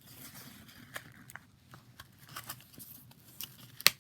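Packaging being handled: scattered light clicks and rustles, with one sharper click just before the end.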